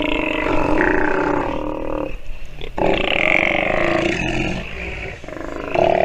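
Steller sea lion pup calling: a long, pitched, bawling call, a second long call starting about three seconds in, and a short call near the end.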